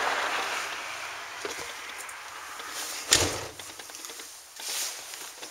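Steady hiss of nearby highway traffic, fading over the first second or two. Then a single sharp thump about three seconds in, and a softer rustling burst near the end.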